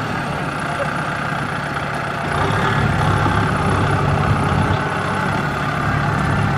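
Diesel engines of a Kubota M6040SU tractor and a Kubota DC70 combine harvester running together under load as the tractor pushes the mired harvester through mud. It is a steady drone that gets a little louder about two seconds in.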